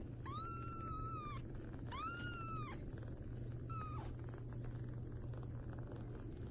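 A cat meowing three times: two long, high meows and a short one.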